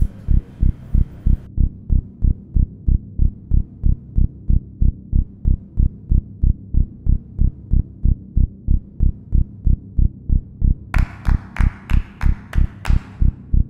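Film score: a steady, pulsing low bass beat like a heartbeat, about three pulses a second. Crisp, fast ticking percussion joins it about eleven seconds in.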